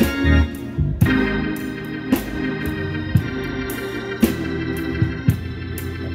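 Organ music playing sustained, changing chords, with a sharp beat about once a second.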